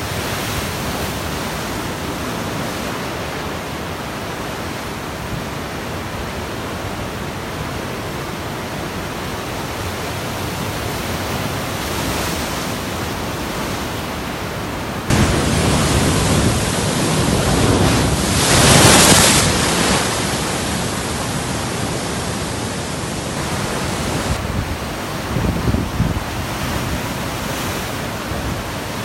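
Loud, steady rush of falling water from a waterfall. About halfway through, a louder, closer rush cuts in abruptly, swells, and cuts back out about nine seconds later.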